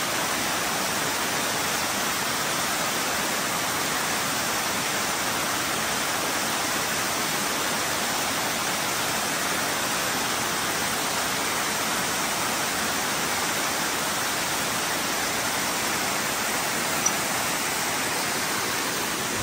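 Amicalola Falls, a tall waterfall cascading down steep rock, rushing with a steady, even roar of falling water. One brief click near the end.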